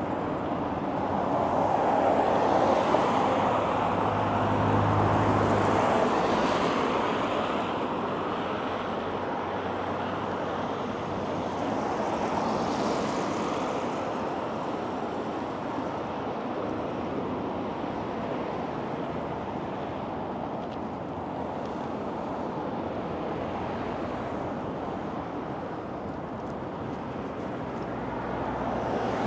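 Road traffic noise with wind on the microphone, a steady rush that swells for a few seconds near the start.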